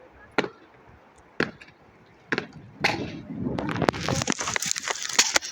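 Sharp knocks or impacts, about one a second, then a dense, rapid clatter of knocks over a rising hiss from about halfway through.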